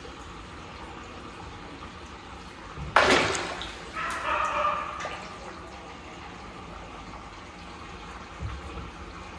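Large fish splashing at the water surface of a shallow tank as they strike at chunks of chicken: one sudden loud splash about three seconds in, then more sloshing a second later. Steady running water throughout.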